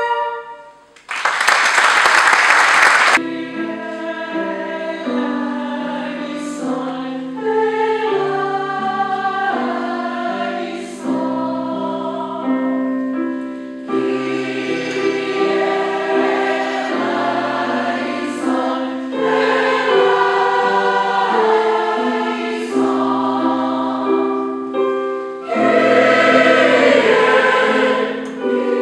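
A flute ensemble's last note fades, followed by about two seconds of applause, and then a large mixed choir of over seventy voices sings slow, held chords.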